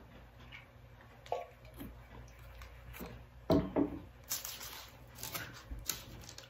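Faint sounds of a man eating lunch: a drink from a tumbler, small knocks and rustles, then a bite into a wrap sandwich and chewing.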